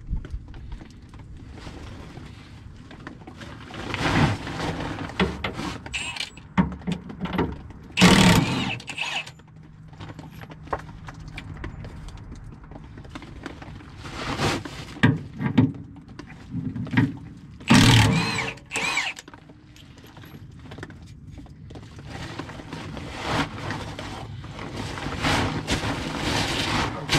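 Hand tools working the 15/16-inch bolts on the skid plate of a John Deere 640D skidder: scattered metal clicks, clanks and scrapes, with two louder noisy bursts about eight and eighteen seconds in.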